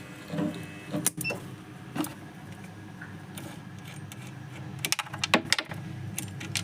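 Metal clinks and scrapes of a spanner working the nuts loose on the battery terminals, with a few sharp clicks scattered through, over a steady low hum.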